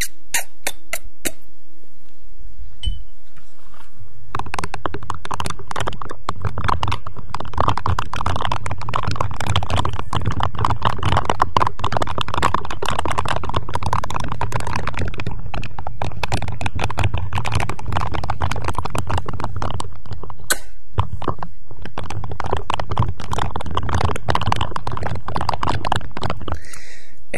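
A few clicks, then from about four seconds in a steady, dense crackling and scratching right against the microphone, with a low rumble under it, briefly breaking off near the end: an ASMR trigger sound made close to the mic.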